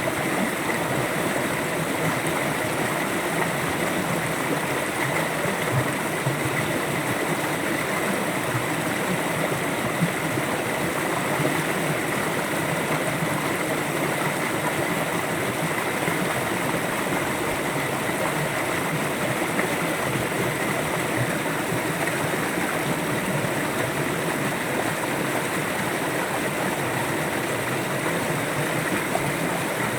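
River water flowing, a steady rushing over rocks without a break.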